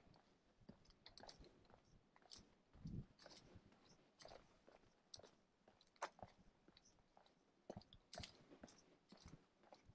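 Faint footsteps on a paved lane: irregular soft crunches and clicks, with a duller thump about three seconds in.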